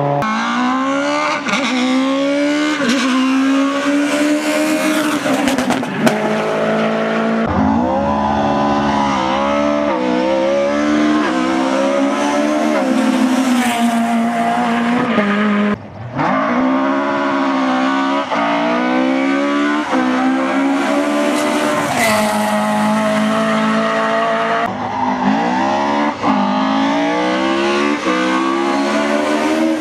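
Rally car engines revving hard as the cars pass on a gravel or tarmac stage, pitch climbing and falling back with each gear change, with some tyre squeal. The sound cuts between several cars, at about 7 s, 16 s and 25 s in.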